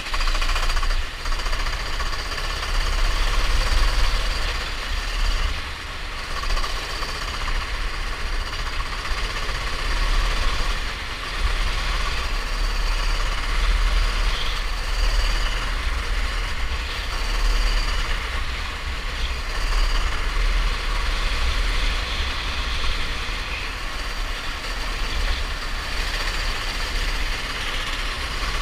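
Racing go-kart engine running at speed, its loudness swelling and dipping every few seconds, under a heavy low rumble of wind buffeting the microphone.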